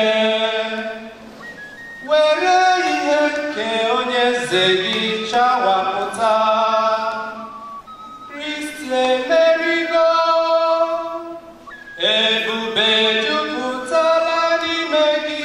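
A man singing a church chant unaccompanied into a microphone, in long phrases of held notes with short pauses between them.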